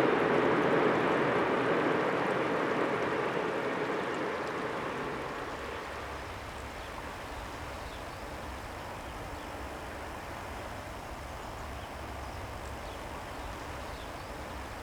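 A passing train's rushing wheel-and-rail noise fades away over the first five seconds or so, leaving a quieter steady low rumble.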